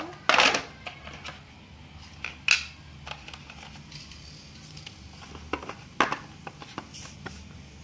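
Packaging and phone accessories handled on a tile floor: the card box tray lifted out and the charger and coiled cable set down, in a series of short rustles and light knocks. The loudest come about half a second in, near two and a half seconds, and at six seconds.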